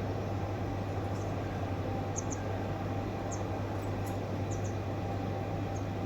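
Steady low hum and hiss, with about seven faint, very short high-pitched chirps or squeaks scattered through it.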